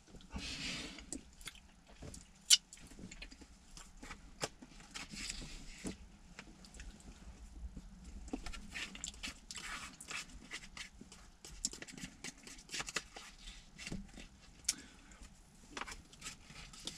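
A man chewing and eating stew, with small clicks and scrapes of a plastic spoon against a plastic meal tray; one sharper click about two and a half seconds in.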